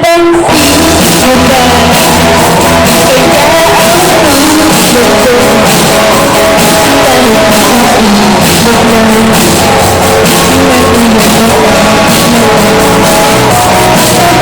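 Live rock band playing loudly: electric guitar, bass guitar and a drum kit with a singer's voice on top, playing a song through as a sound check.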